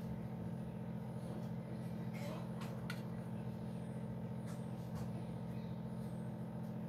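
A steady low hum, with a few faint light clicks as a knife cuts through soft milk cake and touches the steel plate beneath it.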